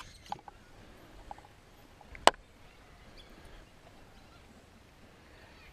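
A single sharp knock about two seconds in, over faint, steady outdoor background noise.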